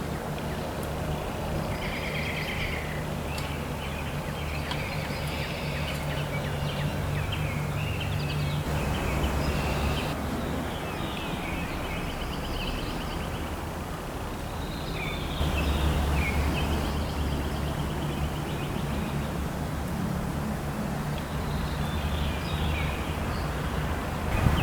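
Several small birds chirping and trilling over a steady low hum.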